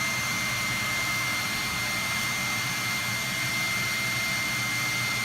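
A steady motor drone with a constant high-pitched whine running on without change.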